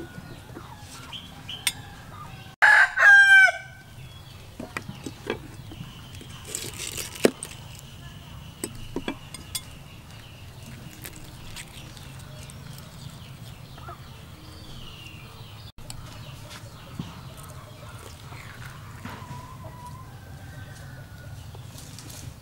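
A rooster crowing once, about three seconds in, loud over a quiet background. Scattered light clicks follow.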